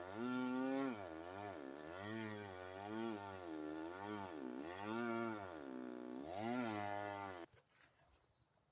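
Two-stroke chainsaw cutting into a big pine, its engine speed repeatedly sagging under load and picking back up about once a second. It stops suddenly near the end.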